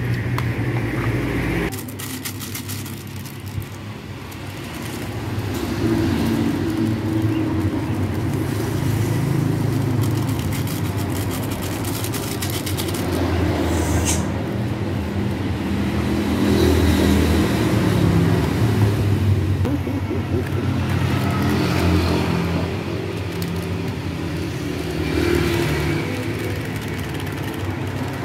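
Motor vehicle engine running nearby, a low rumble that swells and fades slowly.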